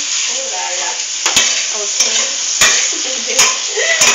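Spaghetti sauce with corned beef and hot dog sizzling in a pan on the stove, with a utensil knocking against the pan about five times as it is stirred.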